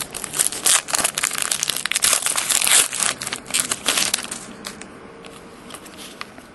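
2009-10 Panini Elite basketball trading cards being flipped and slid against one another in the hands: dense rustling and scraping with many sharp little clicks for about the first four seconds, then only a few faint clicks.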